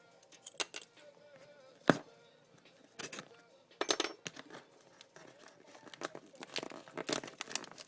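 Rummaging through a stash of markers: plastic markers knocking and clattering against each other, with crinkling packaging. A single sharp knock about two seconds in is the loudest sound.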